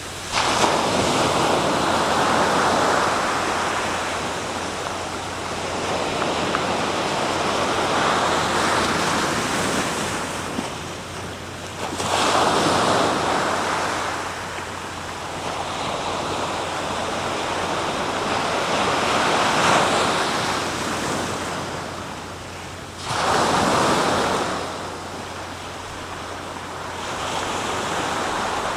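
Sea waves breaking on the shore and washing back: a steady rushing that swells and ebbs over several seconds. Big breakers crash in suddenly about half a second in, at about twelve seconds and near twenty-three seconds.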